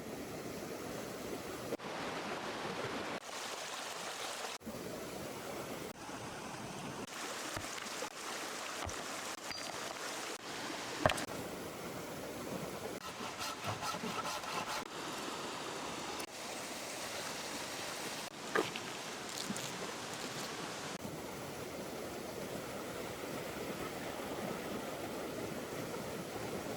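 A river flowing, a steady rushing hiss of water whose tone shifts abruptly several times. A sharp knock sounds about eleven seconds in, and a fainter one comes later.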